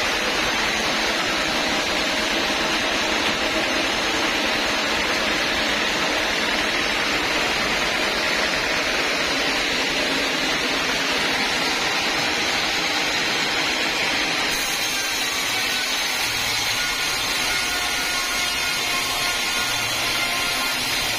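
Homemade band sawmill running steadily, its blade sawing through a large old teak log.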